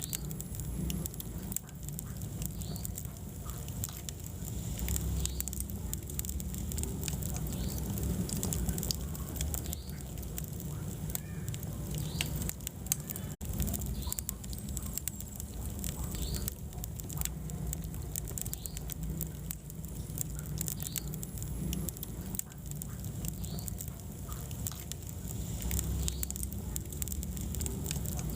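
Wood fire burning in a fireplace: a low steady rumble with constant crackling and sharp pops, and now and then short high squeaks.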